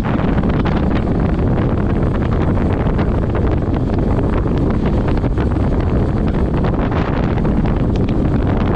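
Heavy wind buffeting on the camera microphone from the rush of air at speed on a bicycle descent, a steady loud rumble with constant gusty thumps.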